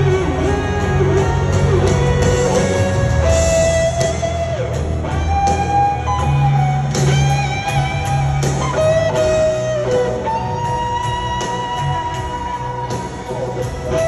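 Live rock band playing a power ballad, heard from the stadium stands through the PA: an electric guitar lead of long held notes that slide from one pitch to the next, over bass and drums.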